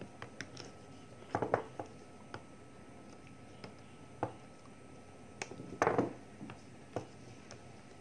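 Handling noise from a phone camera being moved and set in place on a table: scattered light knocks and rubbing, with louder bumps about 1.5 s and 6 s in.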